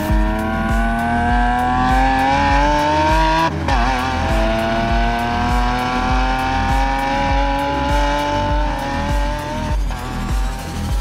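Lamborghini Countach LPI 800-4's V12 engine accelerating hard through the gears. Its note rises steadily in pitch and breaks briefly at an upshift about three and a half seconds in, climbs again, and shifts once more near the end. Background music with a steady pulsing bass runs underneath.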